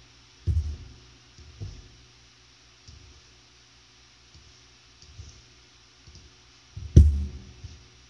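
A few scattered clicks with dull thumps from someone working a computer, the loudest about seven seconds in, over a faint steady hum.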